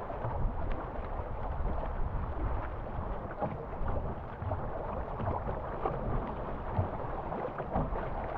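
River water rushing and splashing around a paddled canoe running through riffles, with scattered paddle-stroke splashes and wind buffeting the microphone.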